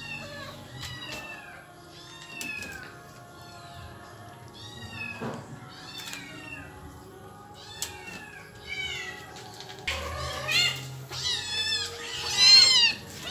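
Cats meowing over and over in short, high-pitched, falling mews, which come faster and louder from about ten seconds in.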